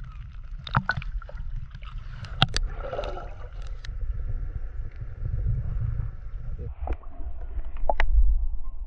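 Muffled water rumble and sloshing heard through an action camera's waterproof housing just under the sea surface, with a few sharp clicks and knocks, the loudest near the end.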